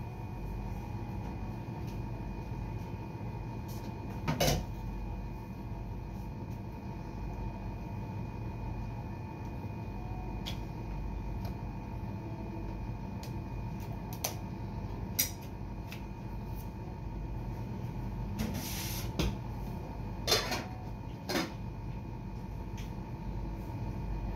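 Scattered knocks and clatters of things being handled at a kitchen counter, over a steady hum. The loudest knock comes about four seconds in, and a cluster of them falls near the end.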